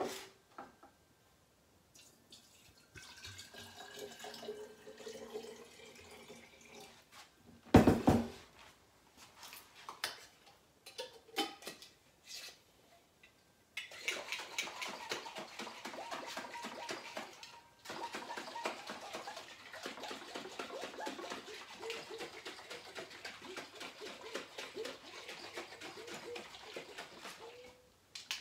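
Water running into a glass mason jar at the kitchen sink, a loud clunk of glass about eight seconds in and a few lighter knocks, then the jar shaken hard for about fourteen seconds, water sloshing inside it to rinse the last honey off the glass.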